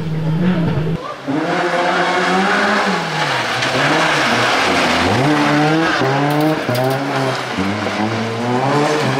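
Rally car engine driven hard, its pitch climbing and dropping several times as the driver accelerates, lifts off and changes gear, with tyre squeal underneath.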